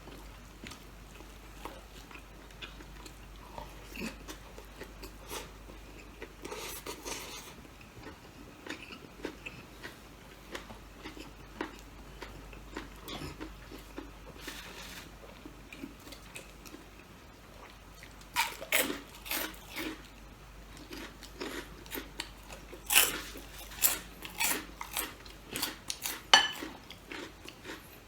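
A person eating close to the microphone: quiet chewing and small clicks, then two runs of loud, crisp crunching bites in the later part.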